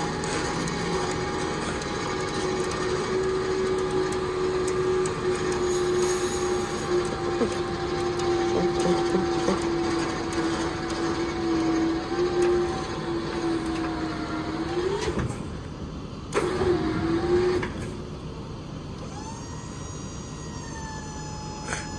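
Ford F-550 running its Switch-N-Go hydraulic hoist while it tilts the loaded body: a steady droning whine that sags slightly in pitch under load. It rises and cuts out about fifteen seconds in, runs again for about a second, then stops, leaving a quieter steady hum.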